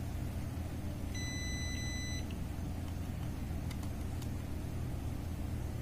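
One electronic beep of about a second, starting about a second in, from the HTC Smart SMD Tester's buzzer as its tweezer tips rest on a capacitor that the owner finds to be shorted. A steady low hum runs underneath.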